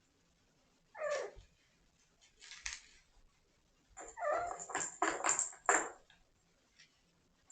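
A cat meowing: one falling meow about a second in, then a louder run of calls between about four and six seconds in.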